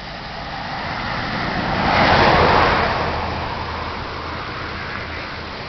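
A road vehicle passing by, its tyre and engine noise swelling to loudest about two seconds in and then fading away.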